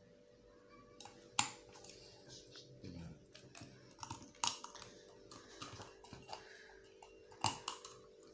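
Oyster being shucked with a small knife: the blade scrapes and clicks against the shell in a run of small irregular clicks. Three sharper clicks or knocks stand out, about a second and a half in, midway and near the end.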